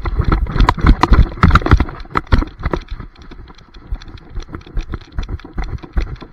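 Knocks and rattles of a camera strapped to a running dog, each stride jolting the mount as its paws strike the grass. The knocking is dense and loud for the first three seconds, then lighter and more spaced.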